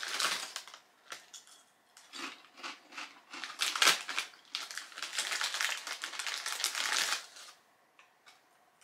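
Foil potato chip bag crinkling and rustling as it is torn open and a hand rummages inside, in spells with short pauses, stopping about a second before the end.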